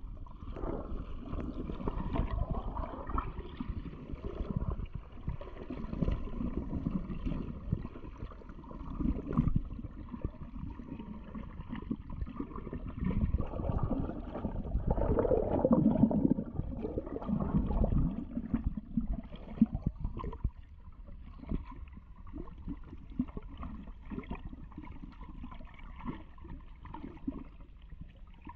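Muffled underwater water noise picked up by a submerged camera: irregular sloshing and gurgling of churned, bubbly water as rainbow trout are stocked into the pool. It is busier for about the first twenty seconds, then settles to a quieter wash.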